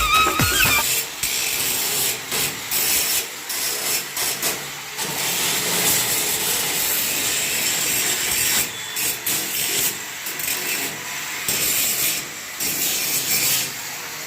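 Electric arc welding: a hissing crackle that breaks off and restarts in short runs, with no tone to it.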